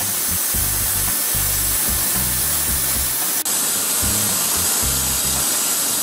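Band sawmill blade cutting through a Ponderosa pine log: a loud, steady hiss that brightens abruptly a little past halfway. Background music with pulsing bass notes plays under it.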